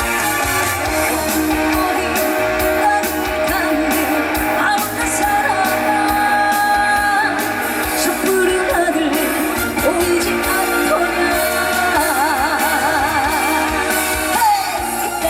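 Live trot song: a woman singing with strong vibrato over a full band accompaniment.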